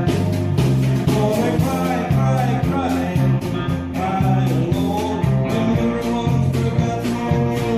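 Live band playing an upbeat country rock number with a steady, driving drum beat.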